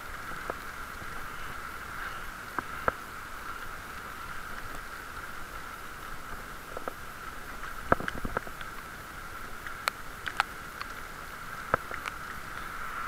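Steady rolling and wind noise from a bicycle riding over a wet brick-paved cycle path, with a few sharp clicks and ticks scattered through it.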